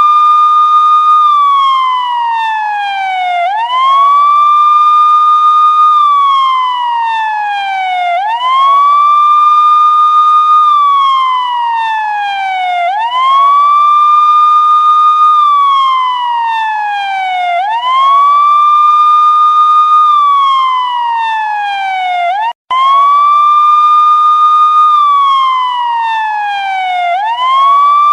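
Police siren sounding a wail: the tone sweeps quickly up, holds high, then glides slowly down, the cycle repeating about every four and a half seconds, six times. It cuts out for a split second about three-quarters of the way through.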